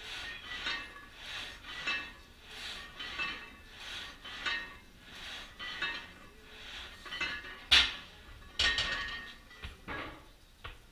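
Plate-loaded leg press rattling under use, its iron weight plates and sled clinking in a steady rhythm of small metallic clinks, with a few louder metal clanks near the end.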